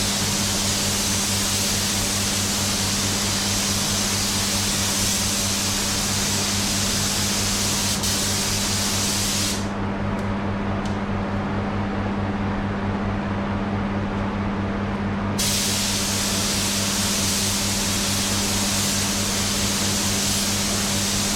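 Paint spray gun hissing steadily as it sprays a panel, stopping abruptly about ten seconds in and starting again about five seconds later, over a steady low hum.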